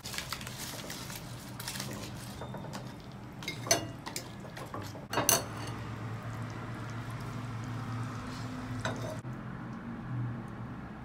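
A ladle knocking and scraping against a white stone-coated wok while saucy wontons and shrimp are stirred and served out, with two sharper knocks about four and five seconds in, over a steady low hum.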